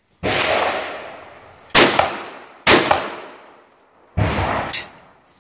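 Shotgun shots on an open range: four loud reports, one right at the start, one just under two seconds in, another about a second later and a last one past four seconds, each followed by a long fading echo.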